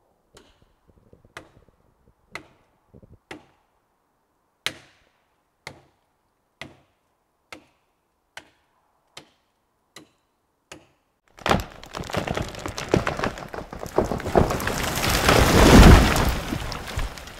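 Axe chopping into a tree trunk, about a dozen sharp strikes roughly one a second. Then the tree cracks and falls, a long splintering crash through branches that ends in a heavy, deep impact near the end.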